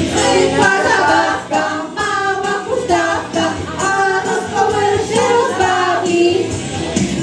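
A small group singing a song together, women's voices leading through microphones.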